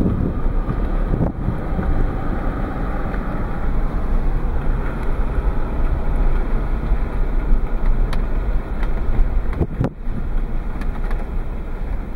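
Steady rumble of a vehicle driving along, heard from inside the cab, with wind buffeting the microphone. The noise dips briefly about ten seconds in.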